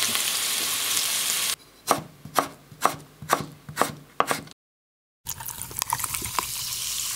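Hamburger patties sizzling in a frying pan with a steady hiss. Then a knife chops potatoes on a cutting board, about six sharp strokes, roughly two a second. After a brief silence, cola is poured into a glass and fizzes.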